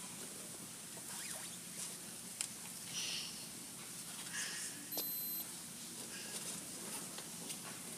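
Quiet gymnasium room tone with a few faint short squeaks and clicks of shoes as children move across the floor.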